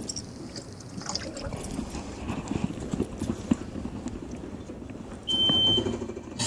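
Water sloshing and trickling, with scattered knocks and splashes. A short, high, steady beep sounds a little after five seconds in.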